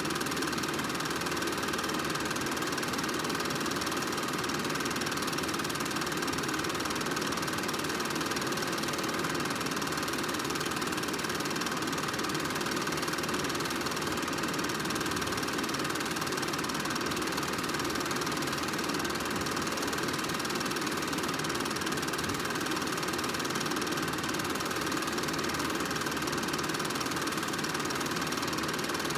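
Film projector running steadily, its motor and film mechanism making an even, continuous mechanical clatter.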